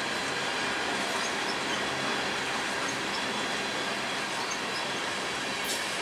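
Tank cars of an oil train rolling past, a steady rumble of steel wheels on rail with faint high squeaks. A short sharp click comes just before the end.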